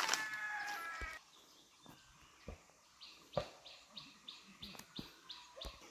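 A rooster's crow ends in the first second. Then a small bird repeats a short, high call about three times a second, some nine notes in all.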